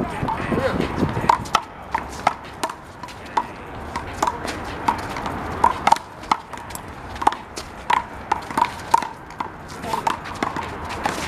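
Rubber handball (the big blue ball) in a one-wall handball rally: a run of sharp, hollow pops as it is slapped by hand, hits the wall and bounces on the court, irregular at about one or two a second.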